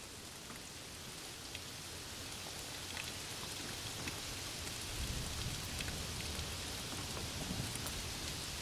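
Steady rain with scattered individual drops tapping. A low rumble of thunder swells up about halfway through.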